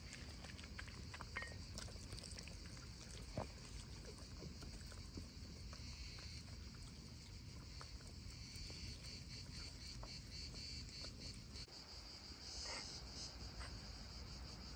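A steady, high-pitched chorus of insects, with a few faint clicks and knocks.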